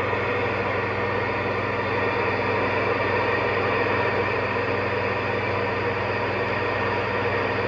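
Steady static hiss with a low hum coming from a General Lee CB-style radio's speaker: a received signal carrying no voice.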